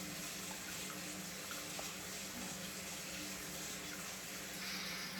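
Bathroom faucet water running steadily down a just-cleared drain, a steady hiss that brightens a little near the end; the drain is flowing much better after years of mineral buildup were cleared.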